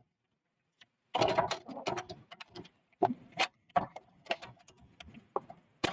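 Hands handling a measuring tool against the inside of a computer case: irregular clicks, taps and light scrapes, starting about a second in.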